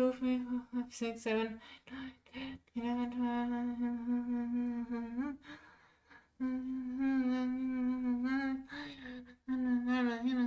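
A woman humming long, steady notes at nearly one pitch, each held for two or three seconds with short breaks between them, after a few short hummed bits at the start.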